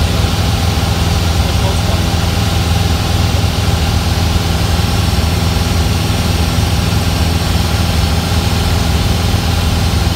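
Cessna's piston engine and propeller running steadily in cruise flight, heard inside the cockpit as an even, unchanging drone.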